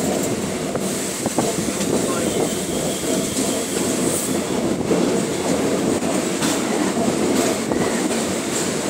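Chennai suburban electric train running, heard from its open doorway: a steady rumble of the wheels on the rails.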